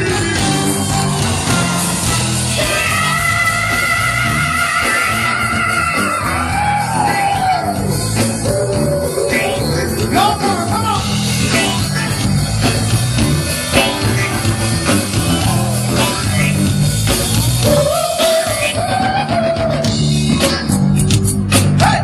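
Live funk band playing, with sung vocal lines over a steady bass and drum groove.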